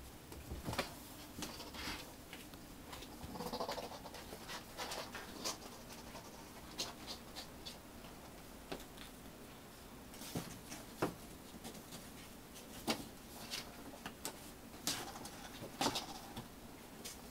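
American Shorthair kitten on top of a wire cage: a couple of short mews, one about three seconds in and one near the end, among scattered light clicks and taps of paws and claws on the cage.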